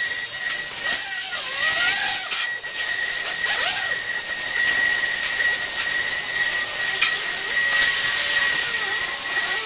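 A 6 kW air-cooled CNC router spindle running with a steady high whine over a hiss as its bit cuts a block of EPS foam, with faint wavering tones as the cut shifts.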